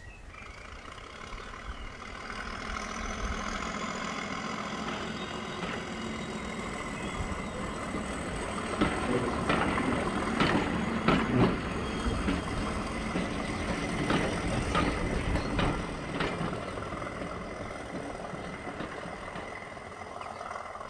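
OO gauge model train hauling tank wagons past at close range: steady motor and running noise, with a scatter of sharp clicks from the wheels in the middle. It grows louder as the train passes and eases off near the end.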